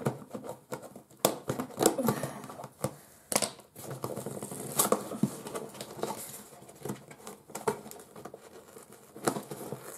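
A taped gift package being torn open by hand: paper and packaging crinkling and ripping in short, irregular rips and rustles.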